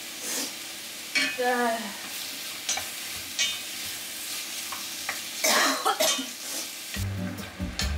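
Wooden spatula stirring and scraping cubed food around a pot on an induction hob, the food sizzling steadily as it fries, with several sharp scrapes against the pot.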